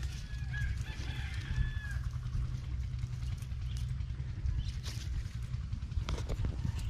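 A rooster crowing once, a long held call that ends about two seconds in, over a steady low rumble and scattered rustling clicks.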